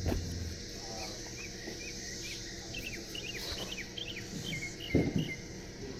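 Cicadas droning steadily, with a small bird singing a run of short chirped notes over it. Two dull thumps, the louder one about five seconds in.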